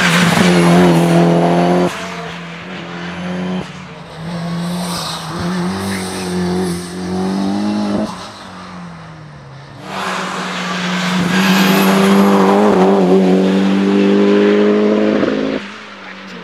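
Race car engines at high revs, pitch climbing and dropping with gear changes, in several short clips cut abruptly together. The loudest passes come at the start and from about ten seconds in, with quieter, more distant engine sound between.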